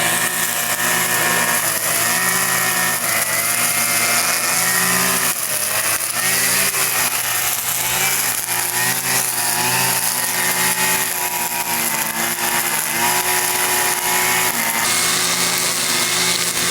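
Brush cutter engine running steadily on a test run after repair. Its pitch sways slightly as the throttle is worked, and it dips briefly about five seconds in and again near thirteen seconds.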